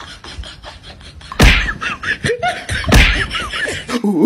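Two loud smacks about a second and a half apart, the first about a second and a half in.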